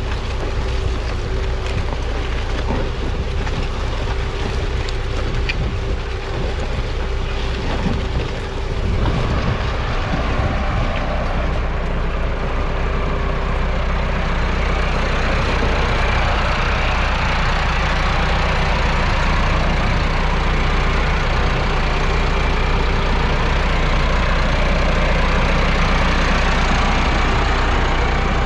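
Massey Ferguson 3060's 4.1-litre four-cylinder diesel engine running steadily under load as the tractor pulls a four-furrow plough, with the shares scraping and turning soil and stubble. The sound changes about nine seconds in.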